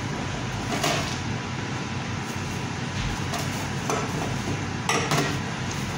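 A pot of vegetable soup boiling steadily on a gas stove as alugbati (Malabar spinach) leaves are added, with a few knocks and clinks from the enamel bowl being handled, once about a second in and several times near the end.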